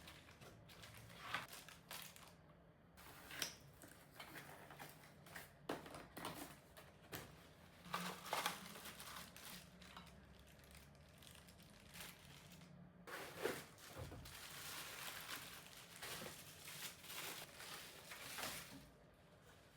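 Packaging being handled: plastic wrap and cardboard crinkling and rustling, with scattered light knocks and a longer stretch of rustling about two-thirds of the way through.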